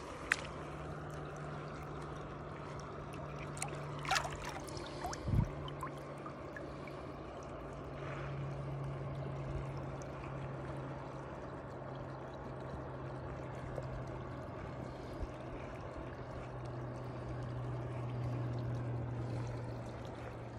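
Shallow river water running and trickling steadily, with a few sharp clicks about four to five seconds in.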